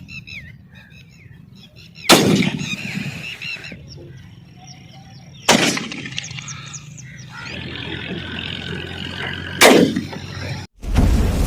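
Three shotgun shots about three to four seconds apart, each echoing briefly, with birds calling faintly between them. Near the end the sound cuts off abruptly and loud noise follows.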